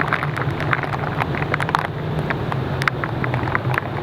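A car running steadily, with many short ticks and crackles scattered over its low hum.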